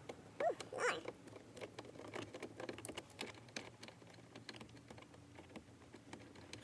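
A run of light, irregular clicks and taps from handling screws and a screwdriver while removing a car's glove box. A brief pitched whine sounds in the first second.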